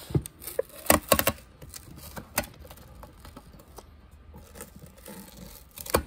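An adhesive membrane keypad being peeled off a scale indicator's front panel with a screwdriver: small tearing and scraping noises with scattered sharp clicks, the loudest cluster about a second in.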